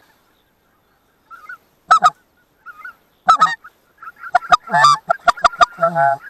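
Loud goose honks: short, sharp calls about two and three and a half seconds in, then a rapid string of calls from about four seconds in.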